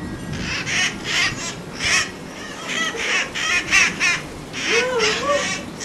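Flock of red-masked parakeets (cherry-headed conures) screeching: a dozen or so short, harsh, raspy squawks in uneven bursts, with a lower wavering call about five seconds in.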